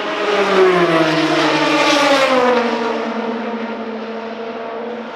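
Endurance race car passing at speed: its engine note swells, peaks a second or two in, and drops in pitch as it goes by, then fades into a steadier, quieter note as it pulls away.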